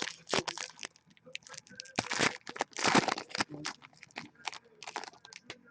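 Hockey card pack wrappers being torn open and crinkled, with cards handled: irregular crackling and rustling, and two longer rips about two and three seconds in.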